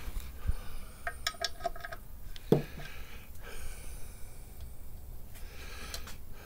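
Metal clinks of a socket wrench on the bolts of a clutch pressure plate as it is tightened down onto the flywheel and nearly seated. A quick run of ringing clinks comes about a second in, then a single sharper knock.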